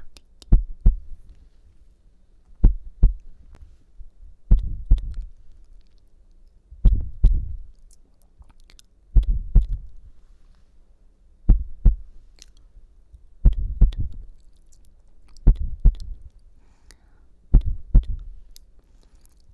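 ASMR imitation of a heartbeat: slow pairs of low thumps, lub-dub, repeating about every two seconds.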